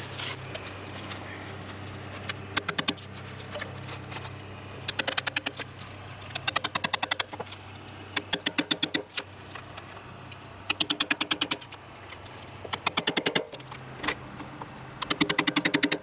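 Chisel being driven into a white oak log to dig out embedded metal: seven short bursts of rapid strikes, about ten a second, each burst under a second long, over a low steady hum.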